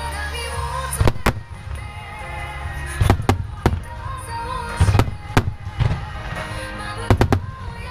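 Aerial firework shells bursting in quick clusters of sharp bangs, two or three close together about every two seconds, over music playing through the venue loudspeakers.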